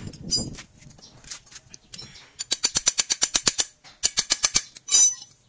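Fast, even metal-on-metal hammer blows, about eight or nine a second, on the steel steering arm of an Isuzu Giga truck at the tie rod end joint, starting about two seconds in, with a short pause near four seconds and the loudest strike about five seconds in. Before the hammering, light clinks of tools being handled.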